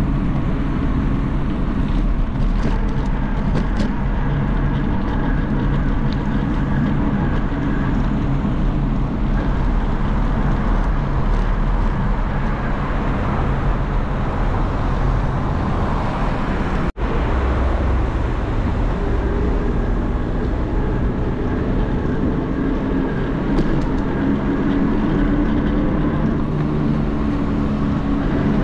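A motor vehicle runs steadily with road noise, a continuous low hum. It breaks off for an instant about two-thirds of the way through.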